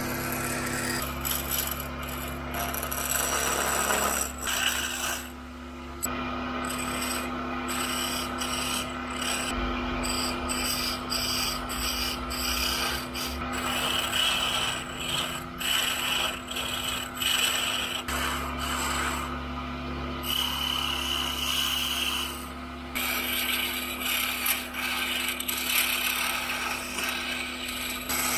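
Belt-driven wood lathe running with a steady motor hum while a hand-held chisel scrapes into the spinning wood. The cutting pauses briefly now and then while the motor keeps running.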